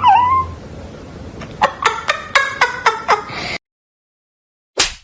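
An animal's voice: a short gliding call, then a quick run of short pitched cries at about four a second, which cut off abruptly. A brief swish comes near the end.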